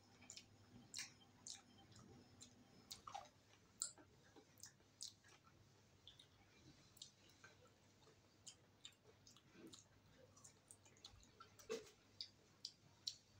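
Faint chewing with many short, irregular wet mouth clicks from someone eating a chicken leg by hand.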